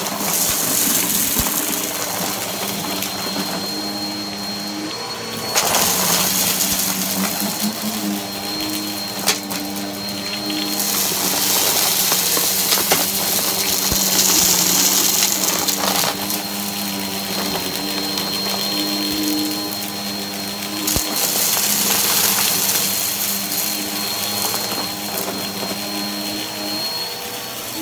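Upright vacuum cleaner running on carpet with a steady motor whine, its hiss swelling and falling as it is pushed back and forth. A few sharp clicks of grit and debris being sucked up.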